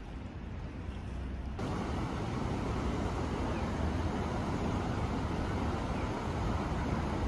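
Steady rushing of a river flowing under a bridge. It cuts in abruptly about a second and a half in, replacing a quieter outdoor hum.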